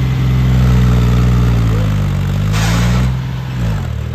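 John Deere 5050D tractor's three-cylinder diesel engine running at high revs under load as the tractor lifts its front wheels into a wheelie. A brief hiss comes about two and a half seconds in, and the engine's pitch drops near the end, then picks up again.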